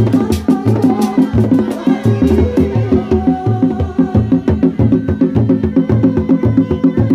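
Seni reak ensemble playing: hand-beaten dogdog drums in a fast interlocking rhythm over a heavy low drum beat about twice a second, with a sustained, wavering melody line above the drums.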